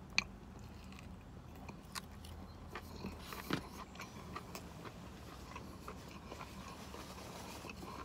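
Biting into a toasted broccolini melt sandwich, a sharp crunch just after the start, then quiet chewing with scattered small crunches and mouth clicks.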